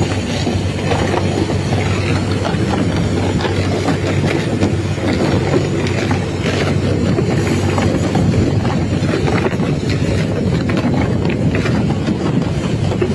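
Fishing boat's engine running steadily under way, a loud low drone with constant rattling and clatter, and water rushing along the hull.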